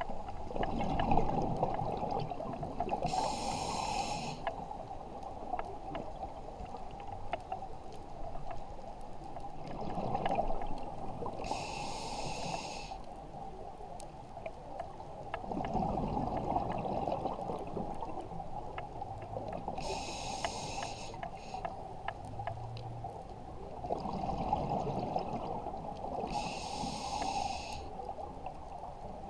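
Scuba diver breathing through a regulator, heard underwater: four breaths about eight seconds apart. Each is a longer low rumble of exhaled bubbles followed by a short, high hiss from the regulator.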